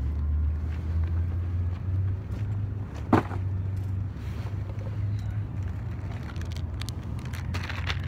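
Steady low engine rumble of an idling motor vehicle, with a single sharp click about three seconds in.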